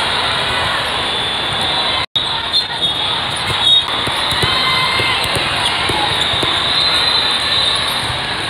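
Echoing hall din of many people talking around volleyball courts, with scattered knocks of a ball bouncing on the court floor. The sound cuts out completely for an instant about two seconds in.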